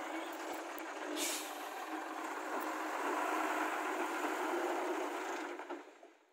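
Heavy diesel machinery running steadily, with a short air hiss about a second in like a truck's air brake releasing; the sound fades away near the end.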